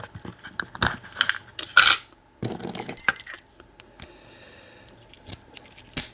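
Small metal lock parts being handled while a padlock cylinder is taken apart: a series of sharp clicks and clinks, with a brief denser scraping rattle about two and a half seconds in.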